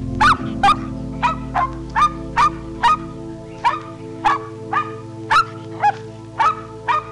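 A rapid run of short, sharp animal calls, each dipping slightly in pitch at its end, about two or three a second, over steady background music.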